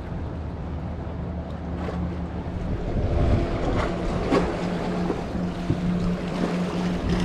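Sea water washing and splashing against breakwater rocks, with wind on the microphone. A steady low hum comes in about three seconds in, and there are a few brief splashes soon after.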